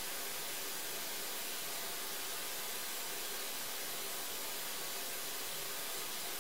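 Steady, bright hiss like white noise, even in level, with no other sound in it.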